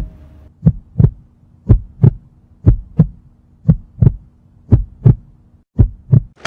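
Heartbeat sound effect: paired low thumps, lub-dub, about once a second over a faint steady hum, the usual cue for suspense.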